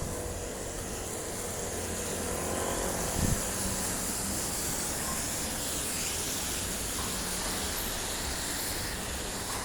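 Outdoor traffic noise: a steady rush of a vehicle going by, with a single sharp knock about three seconds in.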